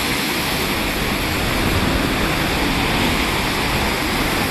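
Steady rushing street noise, the hiss of traffic on wet roads, with a low, unsteady rumble underneath.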